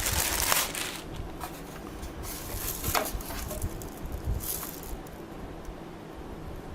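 Crinkling and rustling of product packaging being handled, in several short bursts that thin out after about five seconds.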